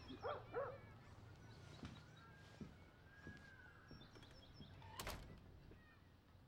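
Quiet room ambience with a dog barking faintly a few times in the first second, faint chirps and a long whistling tone in the middle, and a single sharp knock about five seconds in.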